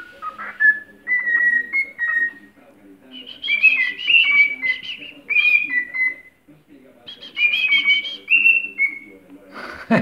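Cockatiel singing: three phrases of short, slurred whistled notes with pauses between them. A sharp knock near the end.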